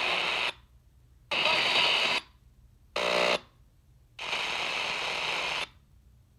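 Shortwave reception from a Sony XR-F5100 car stereo as it is tuned across the band. There are four bursts of hissing static and garbled station sound, each under about a second and a half, and each cut off by a silent muting gap; a short steady tone sounds in the third burst.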